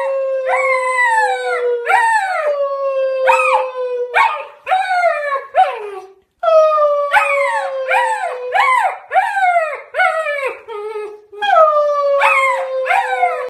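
Husky puppy howling: three phrases of short calls, each rising then falling in pitch, over a long held note that slides slowly downward, with a full stop about six seconds in.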